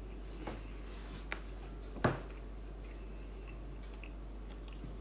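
A person eating quietly, chewing a mouthful of rice and chickpeas, with a few faint clicks and one sharper tap about two seconds in, like a metal fork touching the ceramic bowl.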